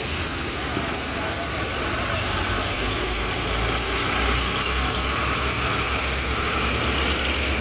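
Engines running in road traffic: a tractor pulling a loaded trolley drives past while a motorcycle idles. The low rumble grows a little louder in the middle as the tractor goes by.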